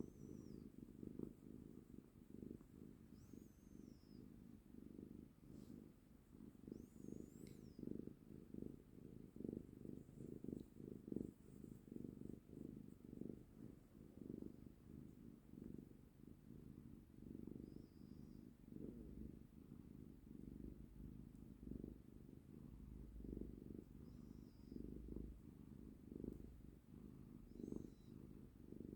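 Domestic cat purring, a low rhythmic rumble that pulses steadily throughout, while it is held in someone's arms.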